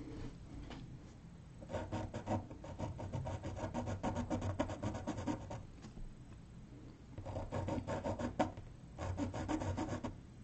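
Graphite pencil sketching on paper: three runs of rapid, short back-and-forth strokes, the longest about four seconds, with brief pauses between them.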